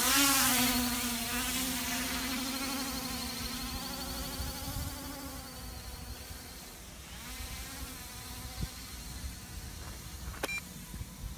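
Quadcopter's four 1806 1800kv brushless motors and propellers buzzing as the drone lifts off and climbs away, loud at first and fading over several seconds, the pitch wavering as the motors adjust. A brief click near the end.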